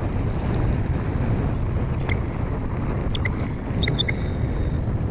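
Wind buffeting the microphone and tyres rumbling over a leaf-strewn dirt track as a mountain bike rolls downhill. A few short high chirps come through about halfway in.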